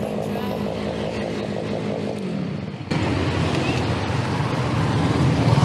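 Small two-stroke engine of a China Ped X5 stand-up scooter (63cc Huasheng) running steadily. About three seconds in the sound breaks off abruptly and comes back louder and lower-pitched.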